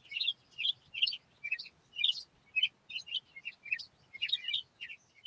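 Small songbirds chirping: a steady run of short, high chirps, two or three a second.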